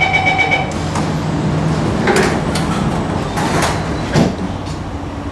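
Singapore MRT train's door-closing warning tone beeping rapidly, stopping under a second in. The sliding doors then slide shut with a couple of whooshes and meet with a thud just after four seconds, over the train's steady low hum.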